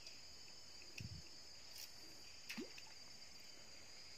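Faint, steady, high-pitched chorus of insects in tropical forest. A few faint clicks and a soft low thump about a second in.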